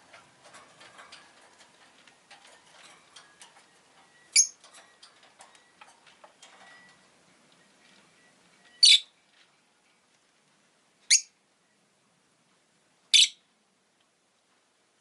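Rosy-faced lovebird giving four short, shrill chirps a few seconds apart, with faint light clicking and tapping during the first half.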